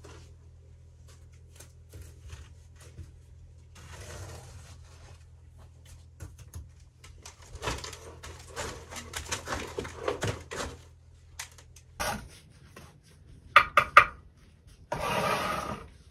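Bricklaying work: a trowel scraping and spreading mortar and knocking concrete blocks into place, as scattered scrapes and clicks. A low steady hum lies under the first part, then come a couple of sharp knocks and a longer loud scrape near the end.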